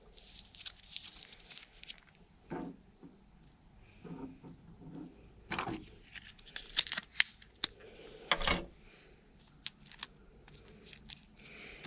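Hands handling small fishing-kit items: irregular rustling and crinkling with scattered sharp clicks, and a quick run of clicks in the middle.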